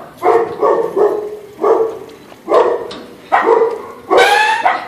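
A dog barking repeatedly, a string of short barks at uneven gaps, the last one near the end longer and drawn out.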